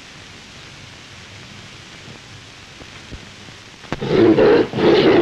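Tiger roaring and snarling in two loud harsh bursts that start near the end, over the steady hiss of an old film soundtrack.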